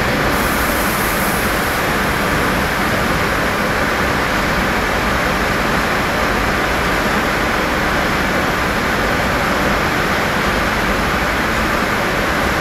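Steady, loud rushing noise with no knocks or thuds.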